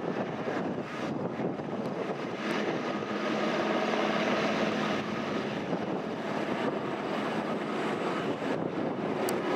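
Airbus AS332L Super Puma helicopter's twin turbines and rotor running steadily, a continuous rush of engine and rotor noise.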